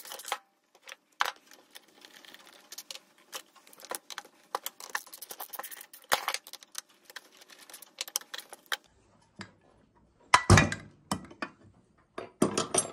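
Hand ratchet clicking as it loosens the Allen-head crankcase bolts of a 66/80cc two-stroke bike engine, with small metal clinks of tool on bolt. A few louder metallic clanks come in bunches near the end.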